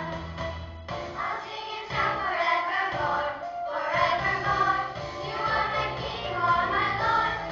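Children's choir singing an Easter praise song in unison over an instrumental accompaniment with held bass notes.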